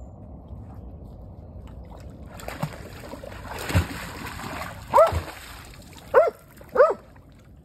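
A dog splashing through shallow water, then barking three short, loud barks near the end.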